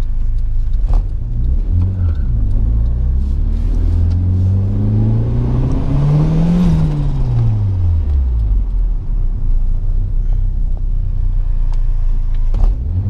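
Turbocharged Nissan GA16DE 1.6-litre four-cylinder engine of a B13 Sentra accelerating, heard from inside the cabin. Its pitch rises for about four seconds, then falls as the throttle comes off, with another brief rise near the end.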